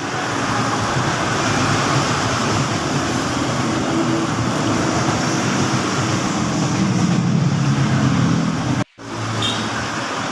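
Steady mechanical background noise with a low hum, broken by a brief dropout about nine seconds in.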